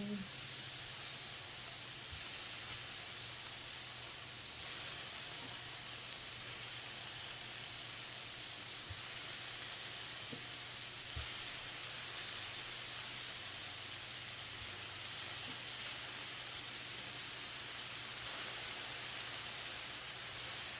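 Meat sizzling on a grill: a steady hiss that gets a little louder about four and a half seconds in, with a few faint ticks.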